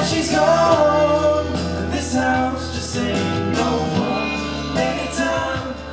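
Vocal group singing held chords in harmony over a sung bass line, with no lyrics picked out.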